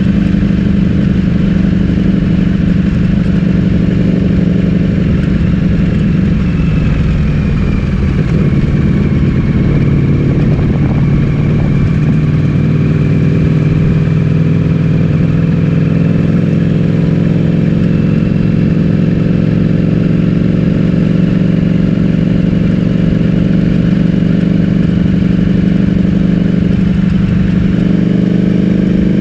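Ducati Streetfighter V4S's 1103 cc V4 engine with an Akrapovic full-system exhaust, running at fairly steady revs. Its pitch drops a little about ten seconds in and then comes back up.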